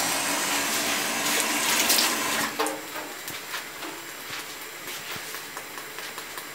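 Pot of salted potatoes at a rolling, foaming boil, the water bubbling steadily. The sound is louder for the first two and a half seconds, then drops and goes on more quietly.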